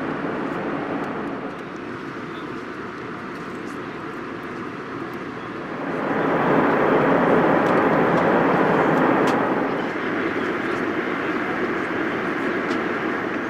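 Airliner cabin noise in flight aboard an Airbus A319: a steady rush of engine and airflow noise. It swells louder about halfway through for a few seconds, then settles back, with a few faint clicks.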